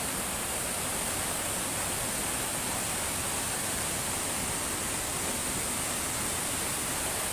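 Steady, even rush of fast-flowing floodwater in a swollen river.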